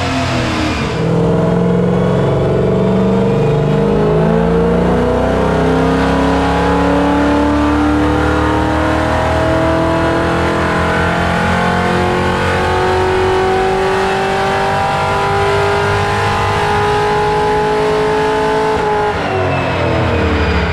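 LS V8 with an aftermarket camshaft and headers, swapped into a 1994 Chevy pickup, making a full-power pull on a chassis dyno. Its pitch climbs steadily for most of the pull, then falls near the end as the engine winds down.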